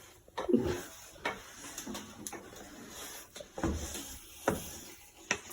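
Kitchen handling sounds while breakfast is made: scattered knocks and clicks at irregular intervals, several of them a little heavier, as things are set down and moved about.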